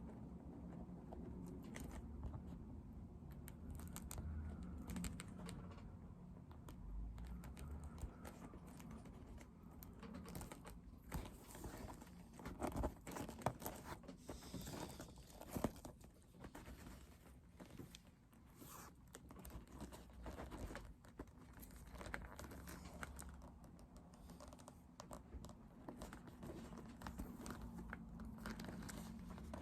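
Faint, irregular clicks, taps and rustles of leather being handled and worked by hand during bag assembly, over a low steady hum, busiest in the middle.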